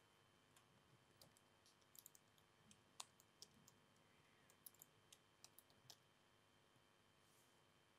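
Near silence with faint, irregular clicking from a laptop being worked by hand, the clicks stopping about two seconds before the end.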